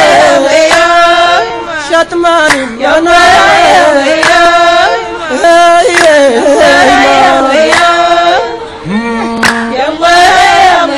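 Voices singing a chant together in repeated phrases of long held notes, with brief breaks between phrases.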